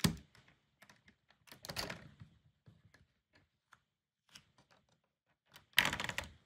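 Hard plastic Lego parts clicking and rattling as the set is handled and worked by hand: a sharp click at the start, a short rattle about two seconds in, and a longer, louder clatter near the end.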